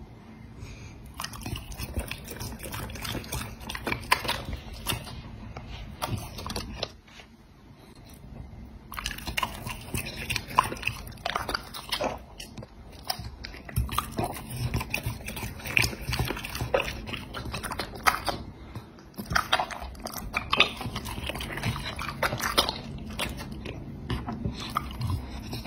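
Dog chewing and smacking its lips on soft cooked meat, wet irregular clicks and slurps, with a short lull about seven seconds in.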